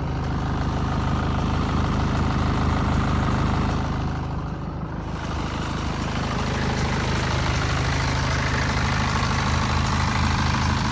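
BMW F10 520d's four-cylinder diesel engine running steadily, with a rushing hiss over it that thins out briefly about four seconds in. The owner finds this strange noise hard to judge as either grinding or air noise.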